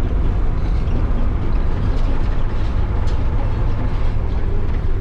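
Micro-bus motorhome on the move: a steady low rumble of engine and road noise.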